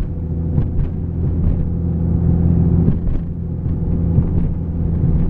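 Lifted Jeep's engine running steadily while driving, heard from inside the cab, with a few faint knocks.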